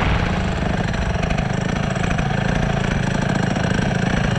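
Stihl chainsaw engine running steadily with a fast, even buzz.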